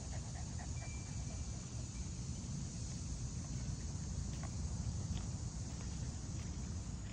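Slow footsteps on a wood-chip mulch path, with a few faint ticks, over a steady high insect drone and a constant low rumble.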